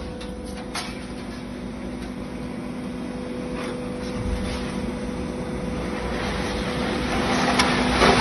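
Idromec PN2700 baler running, a steady machine hum with a few light clicks, slowly getting louder toward the end.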